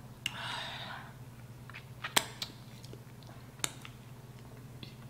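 Close-miked eating and drinking: a short sip from a plastic cup early on, then a few sharp mouth clicks and smacks from chewing chicken wings.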